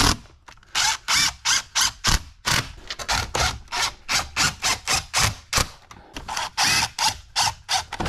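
Cordless drill run in many short trigger bursts, a few tenths of a second each, some with a brief rising whine as the motor spins up, driving screws to mount a geothermal flow center.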